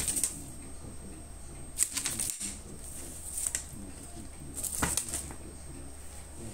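Cat's claws raking a corrugated cardboard scratching pad: about four short, scratchy strokes a second or so apart.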